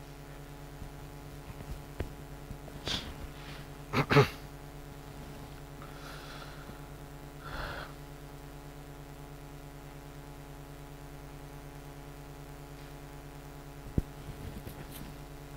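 Lecture-room hum holding steady, broken by a few brief sounds from people: a short sharp vocal burst in two quick parts about four seconds in, softer breathy noises a few seconds later, and a single click near the end.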